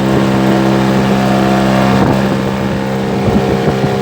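Small fishing boat's engine running steadily at speed, a constant drone, with wind buffeting the microphone and irregular gusts or splashes in the second half.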